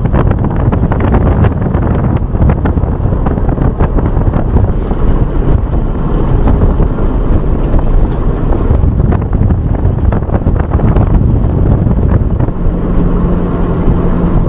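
Wind buffeting the microphone: a loud, uneven rumble that comes and goes in gusts. A faint steady hum joins in near the end.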